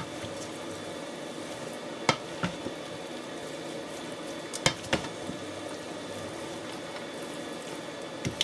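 Stir-fry of vegetables and noodles sizzling steadily in the pan as it is stirred, with a few sharp knocks of the utensil against the pan, twice around two seconds in, twice around five seconds in, and once near the end.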